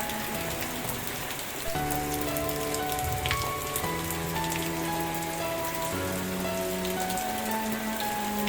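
Steady rain with the patter of individual drops, over soft background music of sustained chords that change every second or two.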